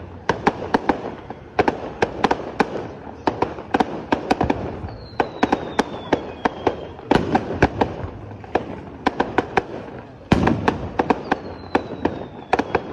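Fireworks display: a rapid, irregular string of sharp pops and cracks from bursting shells, with a heavier boom about ten seconds in. Two falling whistles are heard, one about five seconds in and one near the end.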